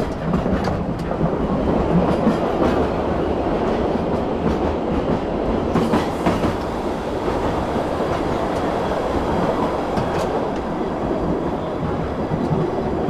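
Narrow-gauge railway carriage running along the track, heard from its open end platform: a steady rolling noise of wheels on rails with a few sharper clacks over the joints.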